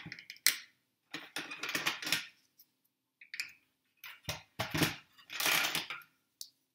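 Plastic clips clicking and clattering against the rim of a glass bowl as they are handled and clipped on, in a series of short rattling bursts.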